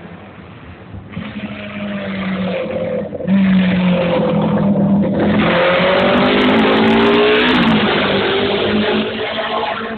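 Racing motorcycle engines at high revs approaching and passing, the pitch climbing and dropping through gear changes with short breaks in the sound. Louder from about a second in, loudest through the middle, with more than one engine heard at once and a few sharp crackles.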